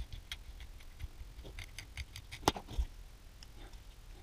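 Small 3D-printed plastic parts of a 1/64-scale model header clicking and tapping as the reel is test-fitted into its arm. The clicks are light and irregular, with a sharper click about two and a half seconds in.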